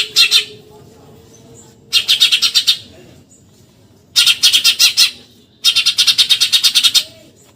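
Eurasian tree sparrow giving rapid chattering bursts: four runs of fast, evenly repeated high notes, each up to about a second and a half long, separated by short pauses.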